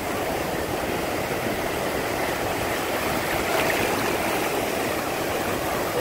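Ocean surf breaking and whitewater washing through the shallows: a steady, continuous rush of water.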